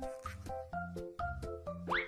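Background music with a steady beat and a bass line repeating short notes, with a quick rising glide near the end.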